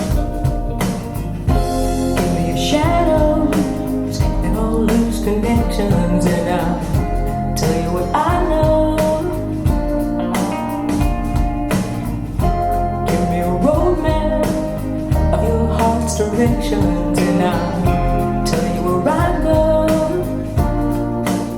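A song with a singing voice and guitar, played back through a pair of Focal Aria 906 bookshelf speakers.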